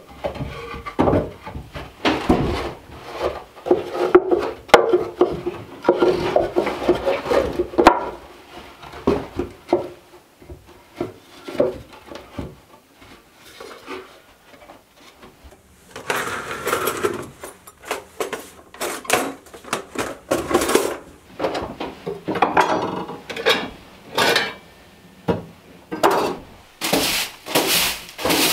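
Pine boards knocking, clattering and scraping against each other as a small wooden box is handled and fitted together. Later, a straw broom sweeping a wooden plank floor in repeated scratchy strokes, loudest near the end.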